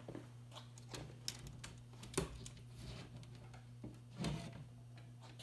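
Scattered light clicks and knocks at irregular intervals, the loudest about two seconds in and a cluster a little after four seconds, over a steady low electrical hum.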